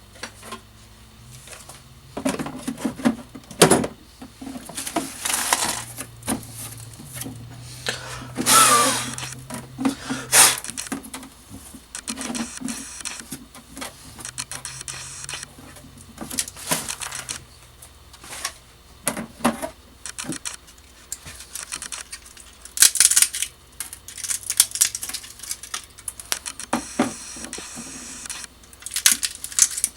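Support material being picked, snapped and scraped off a wood-filament 3D print: irregular clicks, small cracks and scraping, with a longer scrape about eight seconds in.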